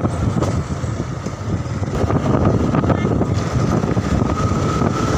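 Motorcycle engine running steadily while riding, heard from on the bike, with a faint thin whine that rises slightly near the end.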